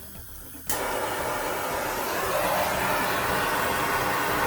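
Handheld gas torch burning with a steady hiss that starts suddenly under a second in. It is heating a bolt and nut to melt the plastic locking insert between them so the nut will unscrew.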